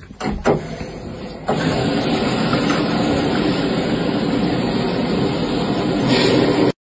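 Water running from a bathtub tap into a glass vase, starting about a second and a half in after a few knocks of glass and tap, then pouring steadily until it cuts off suddenly near the end.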